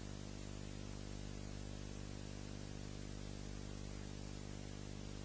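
Steady electrical mains hum with a faint hiss over it, unchanging throughout: the empty soundtrack of a silent black-and-white film excerpt.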